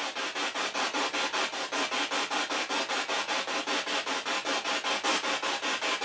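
Spirit box sweeping rapidly through radio stations: choppy hissing static pulsing at an even rate of about six beats a second.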